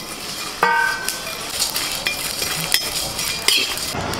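Metal spatula stirring whole spices being dry-roasted in a steel karahi: scraping and clinking of metal on metal, with one ringing clang about half a second in.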